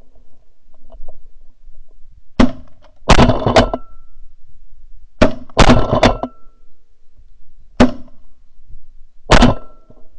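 A volley of shotgun blasts, about eight sharp reports at uneven spacing over some seven seconds, as two hunters fire on a small flock of geese.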